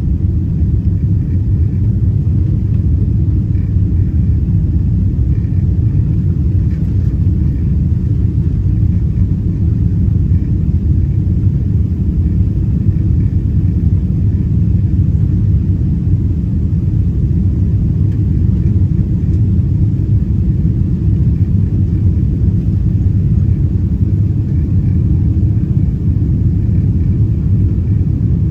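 Steady low cabin rumble of a Boeing 777-200ER climbing after takeoff, its Rolls-Royce Trent 800 engines and the airflow heard from inside the passenger cabin.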